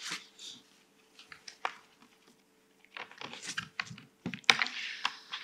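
Paper handling at a lectern microphone: sheets and a folder shuffled and opened, giving scattered light clicks and taps and a longer rustle about four and a half seconds in. A faint steady hum runs beneath.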